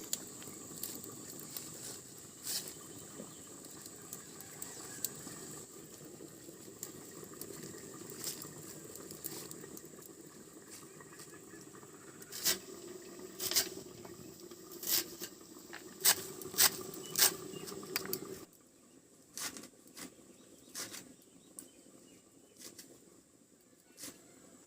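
Leafy greens being picked over and broken by hand: irregular crisp snaps and rustles, loudest in a cluster about two-thirds through. A steady low hiss under them cuts off abruptly at about the same point.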